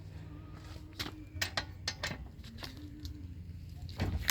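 Scattered sharp metallic clicks from a torque wrench tightening the wheel bolts, irregularly spaced, several in the first half and a cluster near the end, over a faint steady low hum.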